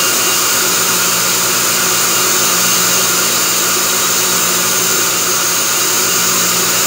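Themac toolpost grinder's electric motor running steadily at speed, a continuous hum with a high whine, alongside the lathe turning the three-jaw chuck. The grinding wheel is spinning free, not yet in contact with the chuck jaws.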